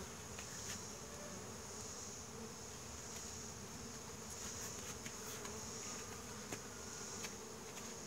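Honey bees buzzing, a faint steady hum, over a steady high-pitched background drone.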